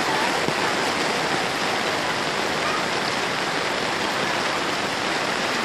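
Steady, even hiss of water: rain and floodwater running over a flooded street.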